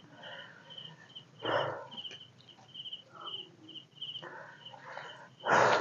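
Night insects chirping steadily in a high, evenly pulsed trill, a few pulses a second. Two louder noisy bursts break in, one about a second and a half in and a louder one near the end.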